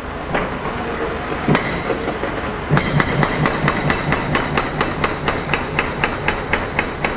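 Hammer striking steel: one knock, then from about three seconds in a fast, even run of ringing metal-on-metal blows, about four to five a second, over a steady background rumble.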